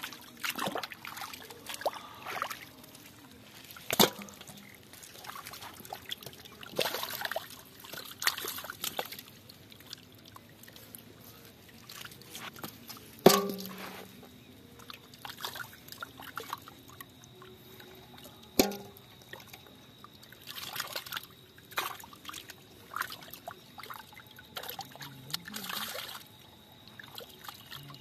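Hands sloshing and splashing through a shallow pit of muddy water while grabbing catfish. Three sharp knocks come as fish land in an aluminium bowl, the loudest about 13 seconds in.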